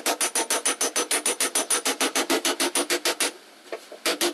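Flat metal hand file drawn quickly back and forth over body filler on a car door panel: an even run of scraping strokes, about seven a second. The strokes stop for under a second near the end, then start again.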